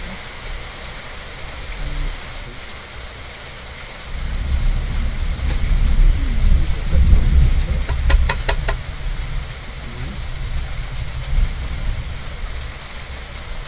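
Steady rain falling, with a long roll of thunder that builds about four seconds in, peaks a few seconds later and fades away. A quick run of about five short pitched chirps sounds near the thunder's peak.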